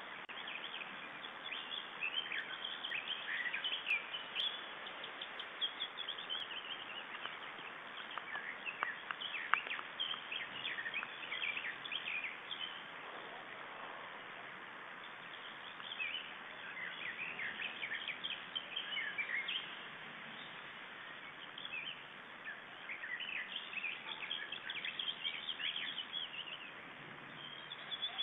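Birds chirping and singing in clusters of quick, high notes over a steady hiss.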